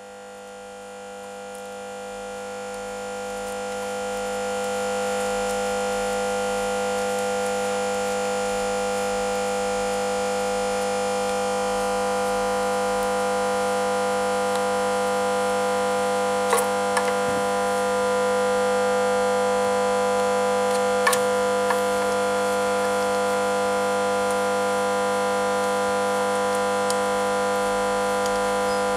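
A steady, siren-like hum of several held tones, fading in over the first five seconds and then holding level, with a few faint clicks about 16 and 21 seconds in.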